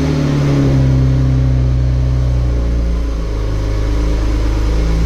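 Car engine idling steadily just after being started, with a slight shift in pitch about three seconds in.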